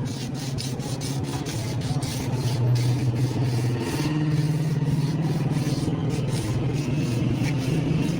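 Rusted sheet-metal fridge side panel being rubbed and scraped down by hand, a quick irregular run of rasping strokes over a steady low hum.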